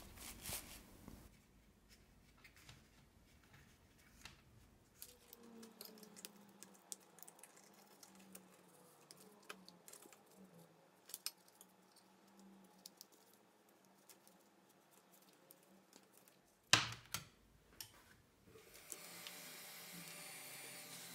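Faint handling clicks and rustles as heat-shrink tubing is worked over a wire-wrapped chopstick, with one louder knock about 17 s in. Near the end a hot air gun is switched on and a steady hiss begins.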